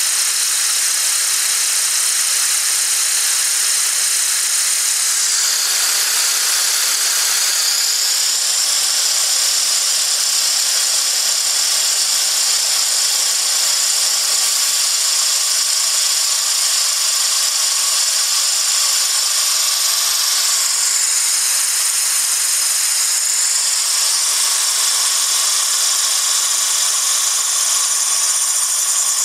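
Compressed air hissing steadily out of a nozzle and venturi T-piece onto a small spinning plastic fan blade. A high whistle in the hiss glides lower about six seconds in and rises again around 22 seconds in.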